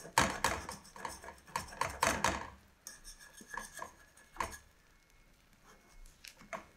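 Metal fork scraping and clinking against a metal frying pan as it pushes and lifts a cooking omelette: a quick run of scrapes in the first two and a half seconds, then scattered scrapes and taps.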